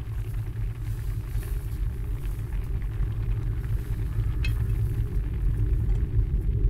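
Deep, low rumbling drone of a horror film's background score, swelling steadily louder. A faint clink sounds about halfway through.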